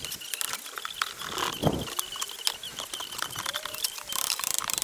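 Scattered light taps, clinks and scrapes of a hammer and chisel working at a cast iron window frame and its brickwork, in irregular strokes with no heavy blows.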